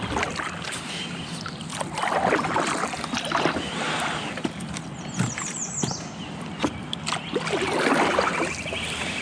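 Kayak paddle strokes dipping and splashing in river water, in swells of splashing noise, with scattered small ticks and a short run of high chirps about five seconds in.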